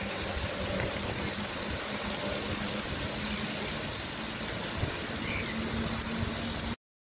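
Steady outdoor rushing noise with a constant low hum and an uneven low rumble, cutting off suddenly near the end.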